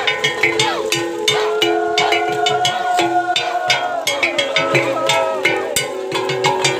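Music: quick, steady percussion strikes under long held notes that bend in pitch at their ends.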